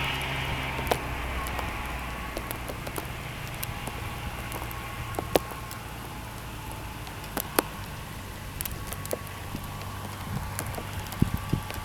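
Kubota RTV 1100 utility vehicle's three-cylinder diesel engine running at a low, steady speed, with scattered sharp ticks and cracks of ice over it.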